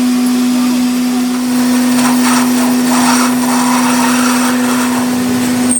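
Metal lathe running with a steady motor hum, with rougher noise for a second or so in the middle.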